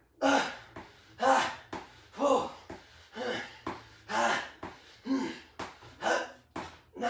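A man breathing hard under exertion through a set of dumbbell reps: a forceful, partly voiced exhale about once a second, with a quick breath between each.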